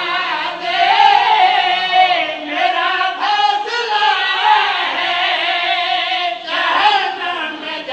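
Men's voices chanting a devotional recitation together, a melodic line with wavering, held notes.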